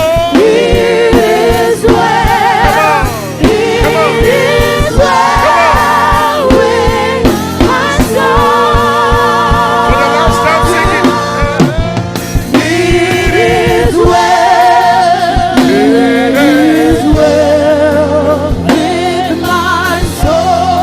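Gospel worship song: singers with vibrato over a band with bass and a steady drum beat.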